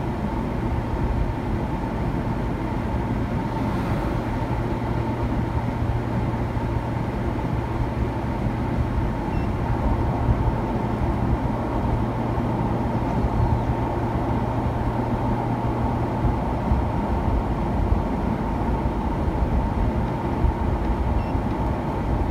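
Steady road and engine noise heard from inside a moving car's cabin at highway speed, with a faint steady whine and a low hum that drops away about two thirds of the way through.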